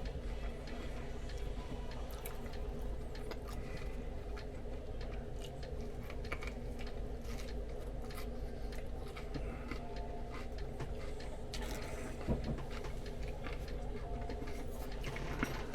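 A person chewing and eating a sandwich: scattered small wet clicks and mouth sounds over a steady low hum.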